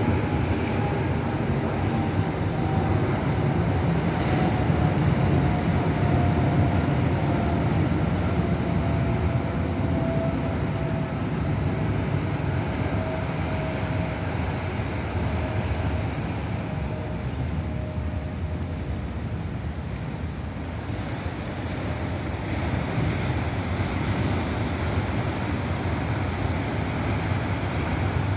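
Ocean surf breaking on the shore, a steady rush of water that swells and eases over several seconds. A faint tone slides slowly down in pitch through the first dozen seconds.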